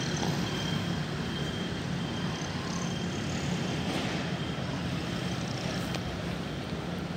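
Steady hum of town street traffic, cars and scooters running, with no single vehicle standing out.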